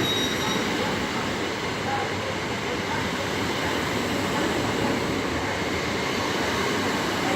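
Electric train running through the station with a steady rumble of wheels on rail. A high wheel squeal fades out about half a second in.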